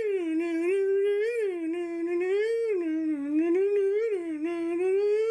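A voice holding one long, unbroken hum that slowly wavers up and down in pitch.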